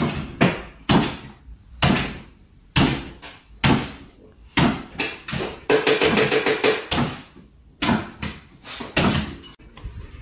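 A string of sharp knocks and thumps, roughly one a second and uneven in strength, with a quick rattling run of clicks about six seconds in.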